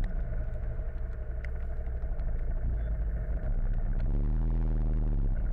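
Motorcycle engine idling at low revs in slow traffic, with a steady low rumble and a few light ticks. The engine sound grows louder about three and a half seconds in.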